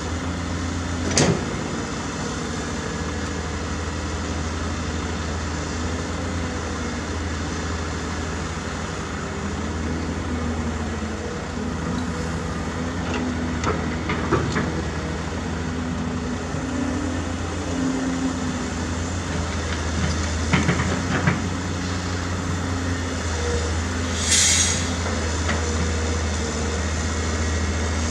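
Diesel engine of heavy earth-moving machinery running steadily, with a sharp knock about a second in, a few more knocks around the middle, and a short hiss near the end.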